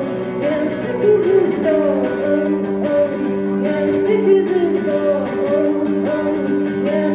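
A live song: a woman singing a sliding melody into a microphone over electric guitar chords played through a small amplifier.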